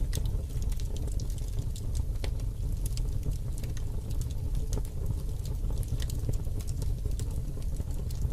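Wood fire crackling: scattered pops and snaps over a steady low rumble of flames.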